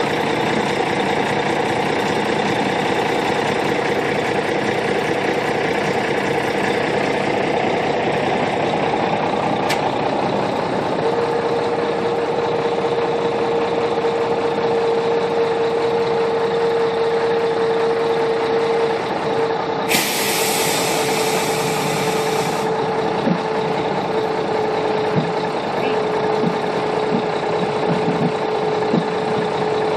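Boat-hauling truck's engine running steadily, with a steady tone over it. About two-thirds of the way through, a hiss of air lasts about three seconds, and a few light knocks come near the end.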